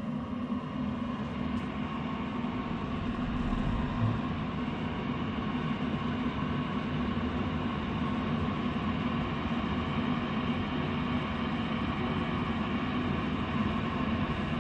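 York gas furnace's draft inducer motor running with a steady hum and rumble during the furnace's start-up sequence, building slightly over the first few seconds. A brief low thump comes about four seconds in.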